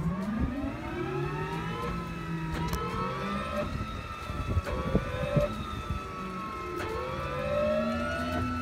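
Robinson R66's Rolls-Royce RR300 turbine being motored on its starter, unlit, for an engine-wash rinse while water is sprayed into it. The starter whine rises in pitch as the engine spools up, then holds steady with the pitch swaying up and down every couple of seconds.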